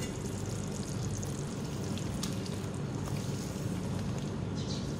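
Chicken karahi simmering in an aluminium karahi, a steady bubbling hiss, with a few faint knocks as the lid comes off and a wooden spoon stirs.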